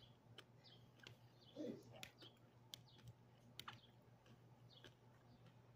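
Faint eating sounds: scattered small clicks and mouth smacks from chewing and a spoon, over a steady low hum.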